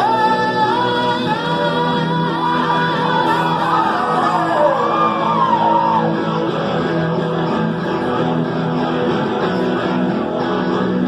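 Live rock band playing: a singer holds and bends high notes over guitars. The vocal drops out about six seconds in while the guitars play on.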